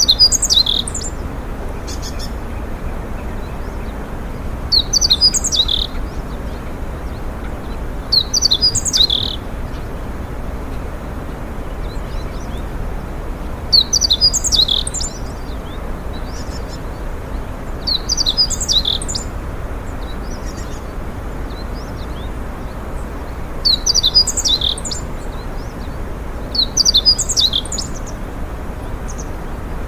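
A songbird singing a short, high, twittering phrase about every four to five seconds, seven phrases in all, over a steady low background rumble.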